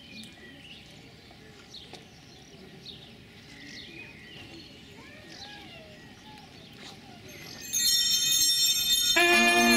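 Faint birdsong, then about eight seconds in a cluster of small hand bells suddenly starts ringing loudly, the altar bells rung at the eucharistic blessing. Just before the end, lower sustained musical notes join the bells.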